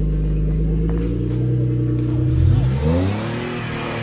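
Lifted rock-crawler's engine pulling steadily at low speed, then revving up and dropping back about two seconds in as the vehicle climbs over rocks.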